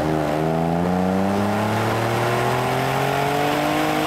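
Jeep Wrangler JK's 3.6-liter Pentastar V6 through a custom side-pipe exhaust with a smooth-merge X-pipe and resonators, pulling under acceleration: a steady exhaust note climbing gradually in pitch.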